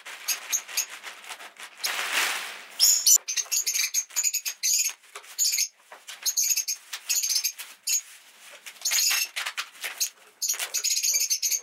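Box being unpacked by hand: rustling, crinkling and clicks of packing, with a longer tearing rasp about two seconds in. Repeated high squeaky chirps from pet birds run through it.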